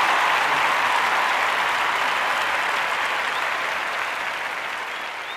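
Large audience applauding, the clapping gradually fading away.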